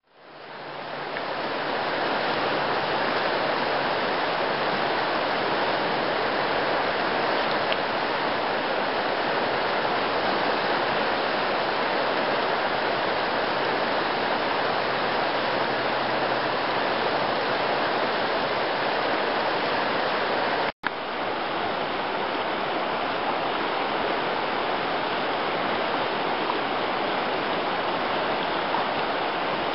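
The McKenzie River's water flowing past in a steady, even rush. The sound fades in over the first second and drops out for a split second about two-thirds of the way through.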